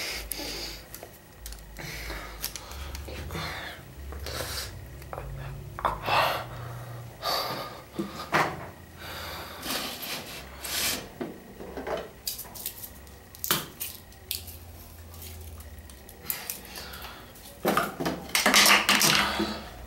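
Small hard objects clinking and clattering as things are handled and moved about in a bathroom cabinet. There are scattered knocks throughout and a denser, louder bout of rattling near the end.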